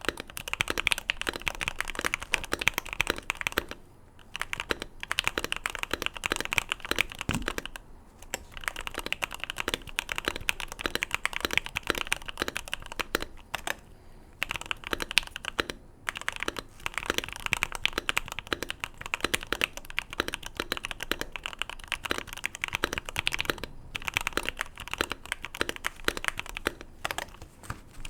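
Typing on a modded Keychron Q1 gasket-mounted mechanical keyboard, with Gateron Milky Black switches and Boba U4T switches, dampened by tape mod, case foam and force-break mod. Keystrokes come in quick, continuous runs with a few short pauses.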